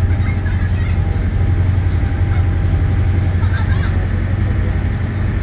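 A passenger ferry's engine running with a steady low hum, with faint voices in the background.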